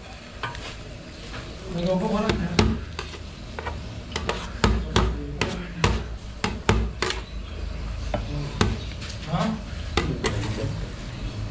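Steel ladle clinking and scraping against a large steel serving tray, in irregular sharp knocks as portions are scooped out.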